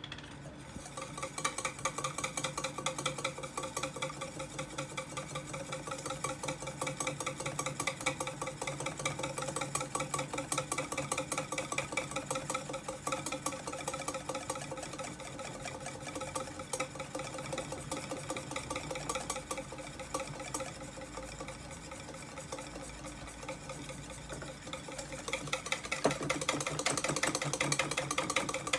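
Wire whisk beating egg yolks in a stainless steel bowl, fast even strokes of wire against metal with the bowl ringing, as oil is drizzled in to emulsify mayonnaise. The whisking gets louder near the end.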